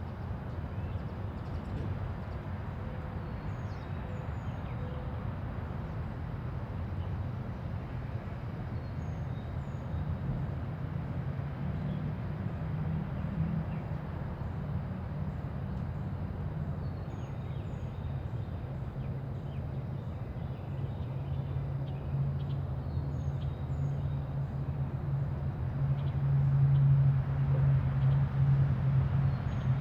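Quiet neighbourhood ambience: a steady low rumble of distant traffic that swells near the end as a vehicle comes closer, with faint high bird chirps scattered throughout.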